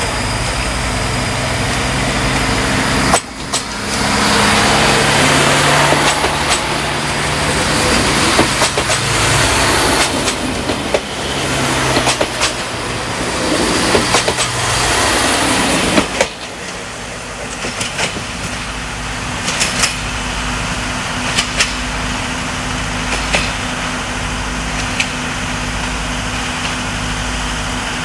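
Siemens Desiro diesel multiple unit passing close by: a loud rush of wheels on rail with sharp clicks over the rail joints that lasts about twelve seconds and then drops off suddenly, leaving fainter, spaced wheel clicks as it moves away. A diesel engine idles steadily underneath throughout.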